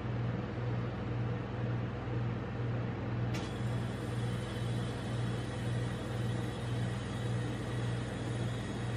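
Steady low hum of a rolled-ice-cream machine's refrigerated cold plate running, its compressor's drone pulsing slowly and evenly about twice a second.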